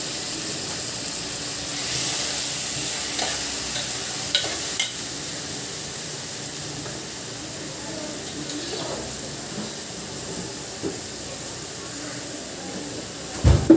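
Onion, peas and mashed potato frying in oil in a steel pan with a steady sizzle, stirred with a metal spoon that clicks against the pan a few times. A loud thump comes near the end.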